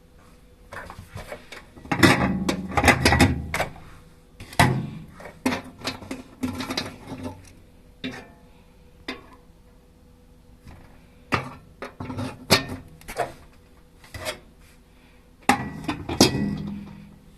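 Knocks, clatter and rubbing of a microwave oven and its parts being handled, in several bursts: a loud cluster about two seconds in, scattered single knocks through the middle, and another cluster near the end, over a faint steady hum.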